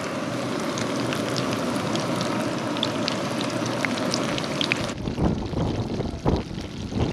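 Breaded chicken frying in hot oil in a skillet: a steady sizzle with sharp pops and crackles. About five seconds in it cuts off abruptly, giving way to a few low rumbles.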